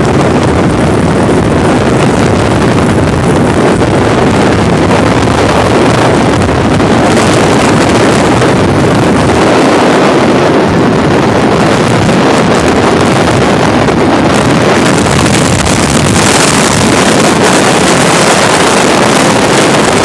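Strong wind blowing over the microphone: a loud, steady rushing noise without breaks.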